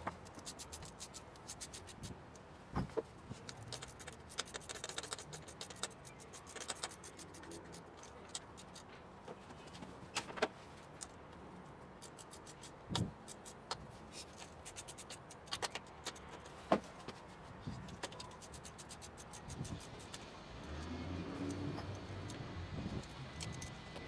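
Hand tools clinking and tapping on metal engine parts in an open engine bay: scattered sharp clicks and knocks at irregular intervals.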